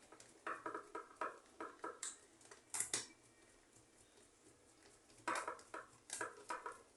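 Light clicks and taps of a small fan's plastic parts, its guard cover and blade, being handled and fitted back on, in two flurries with a pause of about two seconds between them.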